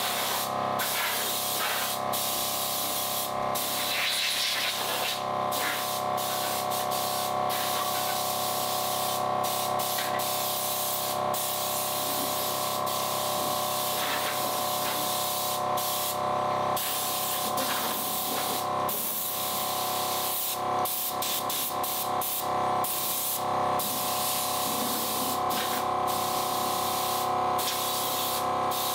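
Milwaukee M18 Fuel 18-volt cordless 2-gallon air compressor running steadily: a motor drone with a hiss of air.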